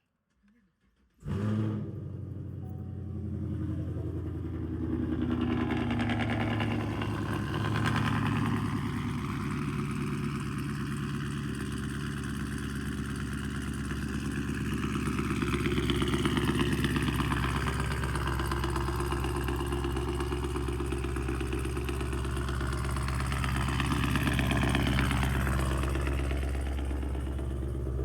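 Chevrolet Camaro SS V8 starting up about a second in and then idling, swelling a little in revs a few times. The owner says it sounds off and hears a weird noise from the rear end when it is turned on.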